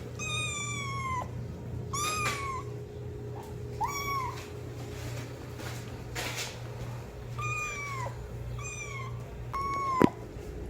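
Kitten meowing repeatedly: about six high meows, each falling in pitch, over a low steady hum. A sharp click sounds near the end.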